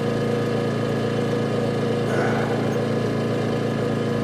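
A motor running steadily, an even drone made of several fixed tones.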